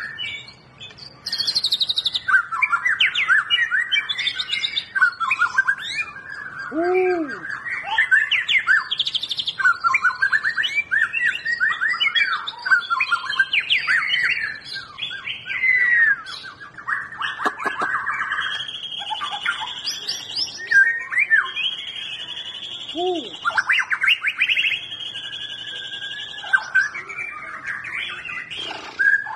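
White-rumped shama singing a long, unbroken, varied song of clear whistles, quick trills and rapid chattering runs. Two low, arched notes come about 7 and 23 seconds in.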